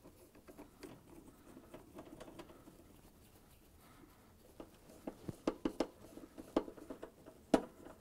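A hand 1/4-inch nut driver turning screws into a refrigerator's sheet-metal rear access panel. Faint handling rustles at first, then from about halfway a run of sharp, irregular metal clicks and taps, a few a second.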